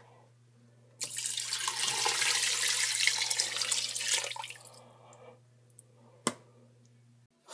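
Water poured from a bowl into a stainless steel stockpot of chicken and broth: a splashing pour that starts suddenly about a second in, runs for about three seconds and tapers off. A single short knock follows a little after six seconds.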